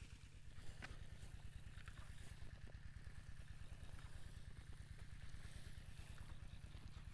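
A small engine running steadily with a faint, even low putter. A few light clicks and rustles sound over it.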